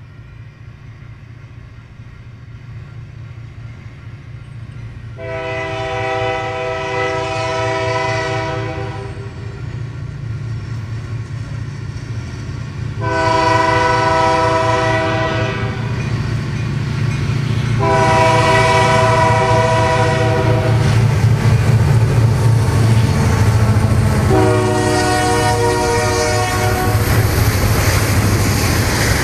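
Lake State Railway freight train approaching a grade crossing: the diesel locomotives' rumble grows steadily louder while the locomotive horn sounds four long blasts for the crossing. Near the end the locomotives pass and the freight cars roll by with a rising rushing noise.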